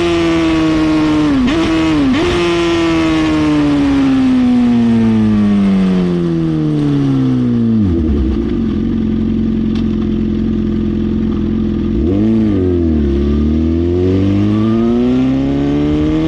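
Suzuki GSX-R750 inline-four with a full Brock's exhaust, its revs falling gradually with two brief dips in the first couple of seconds. About halfway through it settles to a steady lower note, then dips once more and climbs again toward the end.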